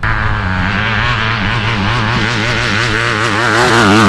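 Dirt bike engine revving hard under full throttle, its pitch wavering up and down, growing louder near the end.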